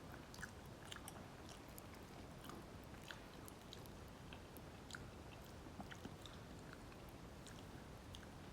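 Faint chewing and mouth sounds of a person eating soft rice and dal with egg, with small irregular clicks scattered throughout.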